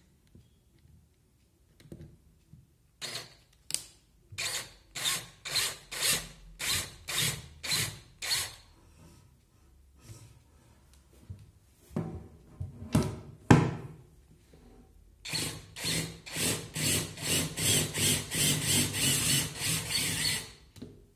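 Cordless drill-driver running bolts into a rotary hammer's housing, in short repeated bursts of the trigger. Partway through there is a short pause with a few sharp knocks. Near the end the bursts come faster and almost without a break.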